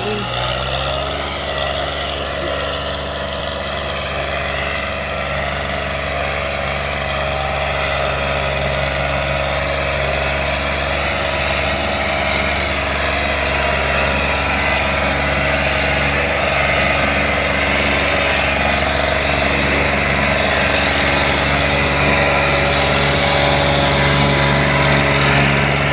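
Diesel tractor engines running steadily while hauling a heavily loaded sugarcane trolley, the engine note growing gradually louder as the tractors come closer.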